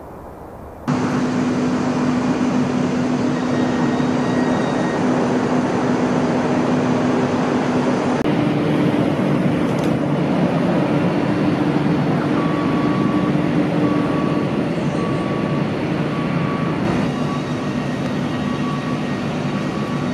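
Jet engines of a Boeing 747-400 freighter running steadily close by, starting abruptly about a second in. In the second half, a high beep repeats about once a second.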